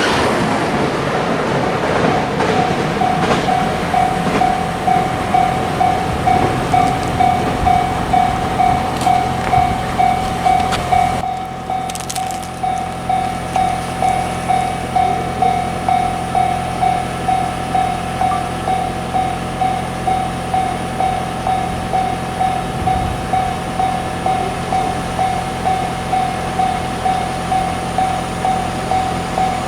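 Japanese railway level-crossing warning bell ringing in a rapid, even ding-ding rhythm. In the first couple of seconds the noise of a passing train fades out beneath it.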